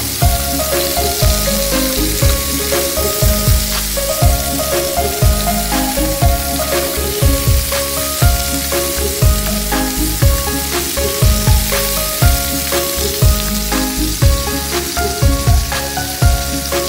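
Chicken-and-leek skewers sizzling in oil in a frying pan, a steady hiss. Background music with a regular beat plays underneath.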